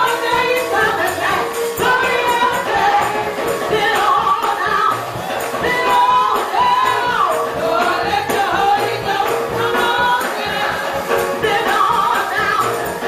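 Gospel praise music: a group of voices singing together over instrumental backing, with percussion keeping a steady beat.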